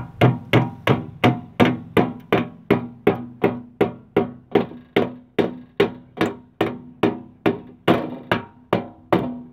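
Hand hammer striking the sheet-metal leg of a homemade chimney rain cap, about three even blows a second, each blow leaving a short metallic ring.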